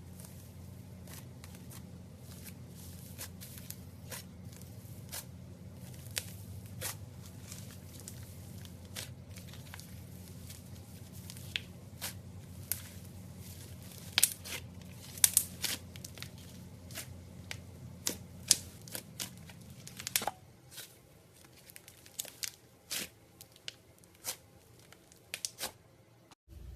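Gold foil slime being stretched and squeezed by hand, giving irregular sticky pops and crackles that come thickest and loudest partway through, over a low steady hum that drops away about two-thirds of the way in.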